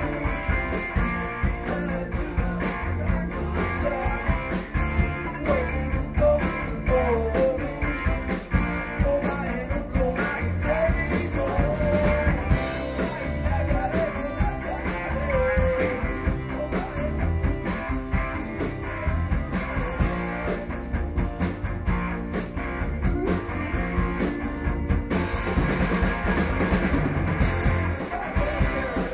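Rock music played on electric guitar and drum kit, with a wavering melody line over the middle of the passage.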